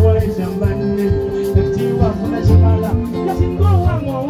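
Live kadongo kamu band music with a steady, repeating bass line, and a man singing into a microphone over it.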